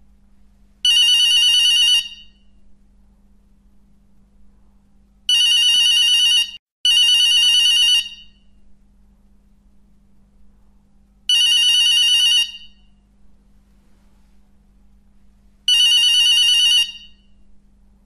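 Telephone bell ringtone ringing in five bursts of just over a second each, a few seconds apart; the second and third come back to back.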